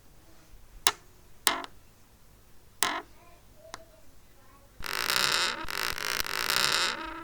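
Creaking door hinge: a few short, sharp squeaks spread over the first four seconds. From about five seconds in comes a louder, continuous run of creaking that breaks off near the end.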